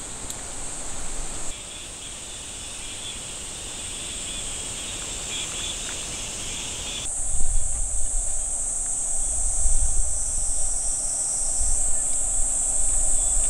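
Insects buzzing in a steady high-pitched drone, with a second, lower insect buzz from about a second and a half in until about seven seconds, when it cuts off abruptly. Underneath is a low rumble of wind on the microphone.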